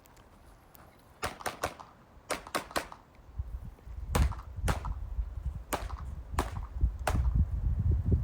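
9mm Glock 19 pistol firing: a quick string of about seven shots, then five more spaced about half a second to a second apart, as the shooter works through a stage with a Texas Star spinning steel target.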